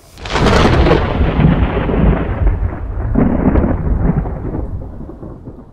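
Thunder sound effect: a sudden clap that rumbles on and slowly fades away.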